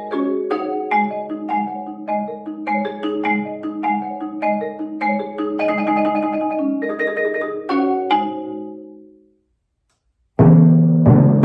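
Marimba played with four mallets: a rhythmic run of struck chords and notes that ends about eight seconds in on a final chord left to ring out. After a second of silence, louder and deeper timpani strokes start near the end.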